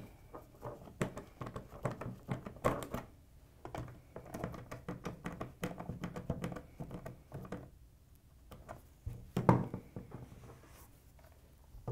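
Hand screwdriver driving screws into a plastic switch enclosure: a run of small clicks, ticks and scrapes as the screws are turned, with one louder thunk about three-quarters of the way through as the box is handled.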